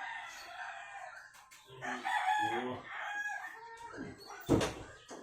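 A rooster crowing: a long call that ends about a second in, then more calling. A sharp, loud thump comes near the end.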